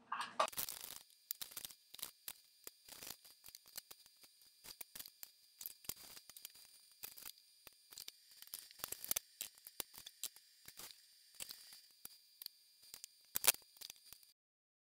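Irregular clicks, knocks and scrapes of a spoon stirring dough ingredients in a mixing bowl, with louder knocks about half a second in and near the end.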